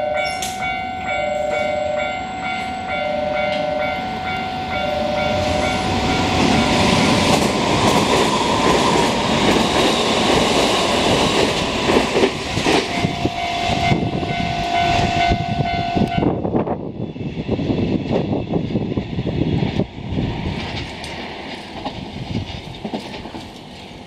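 Semboku Rapid Railway 7020 series electric train passing through the station at speed, a loud rushing roar of wheels with rapid clacking over the rail joints. Steady tones and an evenly repeating beep sound at first and stop about seven seconds in, as the noise of the train builds. The roar drops off suddenly a little past the middle and fades as the train leaves.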